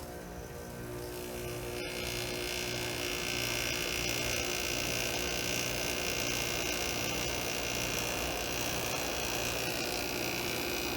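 Vintage Siesta window air conditioner starting up after being switched on. Its hum builds over the first few seconds and then settles into a steady running hum.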